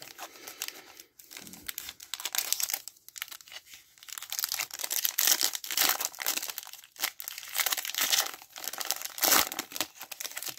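Foil-lined plastic wrapper of a 2022 Panini Mosaic football cello pack crinkling and tearing as it is ripped open by hand and the cards are slid out. An irregular crackle that gets louder about halfway through.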